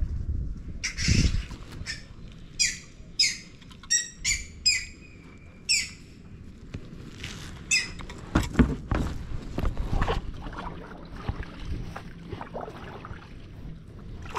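A heron that has grabbed a fishing lure calls about seven times in quick succession, short squawks over roughly five seconds. Low thumps come about a second in and again in the second half.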